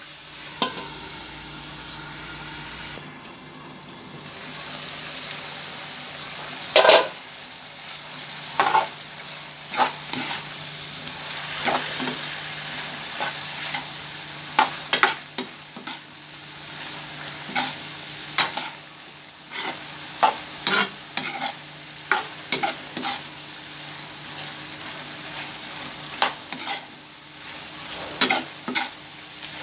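Pork igado, sliced pork and liver, sizzling in a nonstick frying pan while a metal spoon stirs it, with a steady frying hiss and irregular sharp clicks and scrapes of the spoon against the pan.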